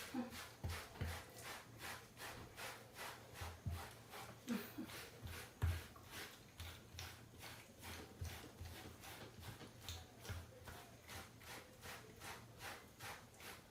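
A brush being pulled through a cat's fur in quick, even strokes, about three a second, with soft low thumps now and then.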